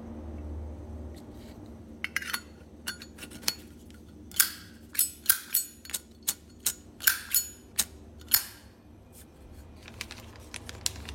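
Metal Zippo lighter being handled, its hinged lid clicked open and snapped shut: a string of about a dozen sharp metallic clicks and clinks over some six seconds, over a faint low hum.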